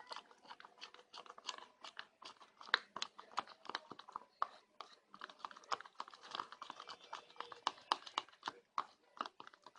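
A stirrer working white glue and water in a cup, with many irregular small clicks and scrapes as it knocks and drags against the cup, a wet, sticky stirring sound.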